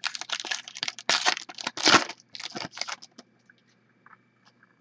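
Foil trading-card pack wrapper crinkling and tearing as it is handled and ripped open, a dense crackling run for about three seconds. A few faint ticks follow.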